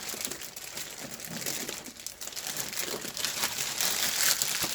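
Plastic and cardboard packaging crinkling and rustling in a steady crackle as a large 3D printer is worked out of the front of its box, growing louder near the end.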